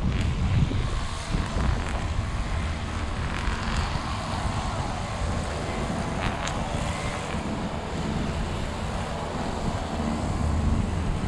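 Wind buffeting the microphone in uneven gusts, over the steady wash of surf.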